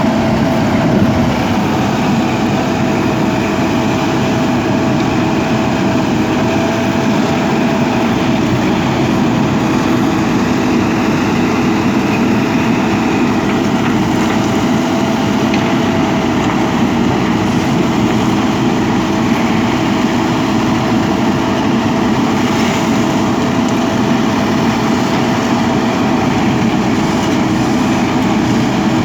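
A steady, even engine hum that holds the same speed throughout, with no revving.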